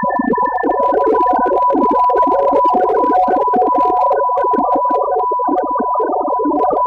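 Electronic music played from a laptop: a steady high synthesizer tone held over a dense, choppy layer of mid-range tones with scattered clicks. A second, higher tone drops out about a second in.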